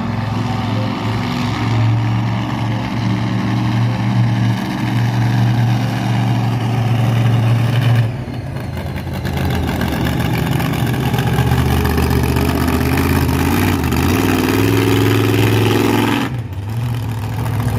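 Monster truck engine running loud, rising in pitch as it revs over a few seconds in the latter part, then dropping off briefly near the end.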